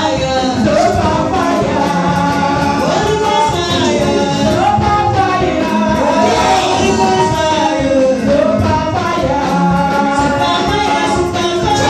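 Music with singing voices over a band with percussion.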